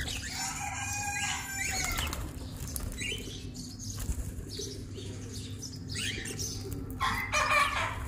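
Budgerigars and cockatiels chirping and flapping their wings as they feed at a seed trough, with calls thickest in the first two seconds and again near the end.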